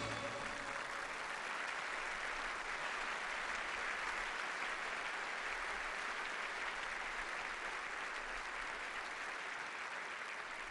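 Large audience applauding steadily after a song, easing off slightly near the end.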